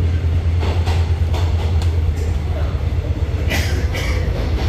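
Baekdudaegan canyon train carriage running through a tunnel, heard from inside: a steady loud low rumble with a few sharp clacks from the wheels on the rails.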